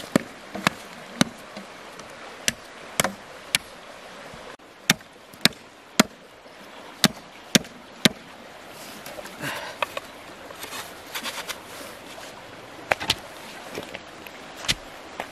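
A large knife chopping into the end of a green bamboo pole, shaping it to a point: sharp knocks in runs of about three, roughly two a second, with a pause partway through. Steady river water runs underneath.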